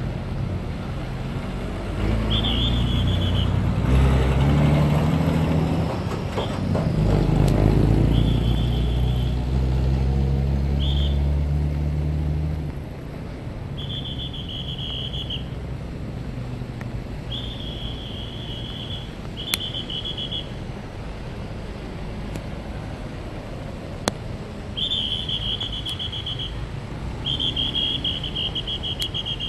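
A traffic policeman's whistle blown in short high blasts, about eight times, over steady road traffic. A heavy vehicle's engine runs loud and low through the first twelve seconds or so, then the traffic is lighter.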